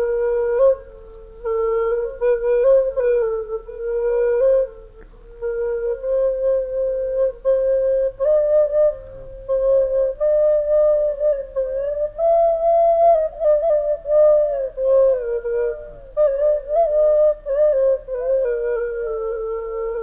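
Background music: a slow solo melody on a flute-like wind instrument, played as one line in short phrases with brief breaths between them.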